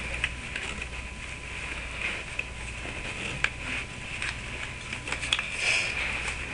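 Light handling noise: scattered small clicks and rustles as a cut sock sleeve is slid over the plastic body of an airsoft AEG, over a steady low hum and hiss.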